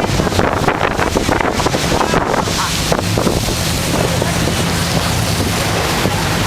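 Jet boat running at speed: a steady engine drone with wind buffeting the microphone.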